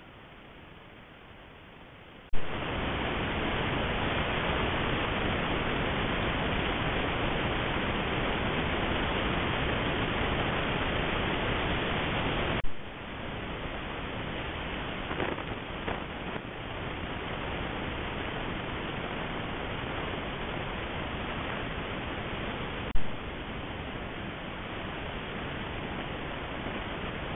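Steady hiss from a trail camera's own microphone, with no clear animal sound above it. It jumps much louder about two seconds in, drops back about ten seconds later and changes again near the end, each change marked by a brief pop where one camera recording cuts to the next.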